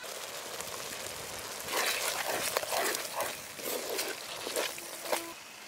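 Melted ghee poured into a clay pot of prawn masala, with a steady hiss. About a second and a half in, a wooden spatula starts stirring and scraping through the thick masala against the clay pot in about five strokes.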